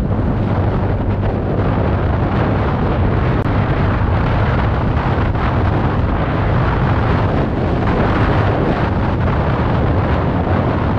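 TVS Ntorq 125 Race XP scooter's single-cylinder engine running steadily while cruising, mixed with heavy wind rush on the microphone.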